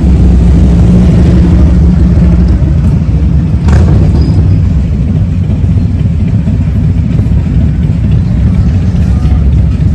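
Motorcycle engines running loud and steady, with a deep, low engine note.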